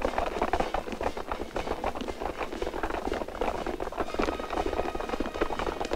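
Many feet in boots walking together: a dense, irregular tramp and shuffle of a large group moving in a column, steady throughout.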